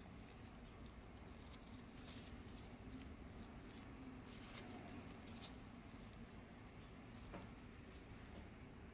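Faint, scattered soft clicks and rustles of disposable-gloved hands pressing a rice ball wrapped in a kale leaf, over low room hum.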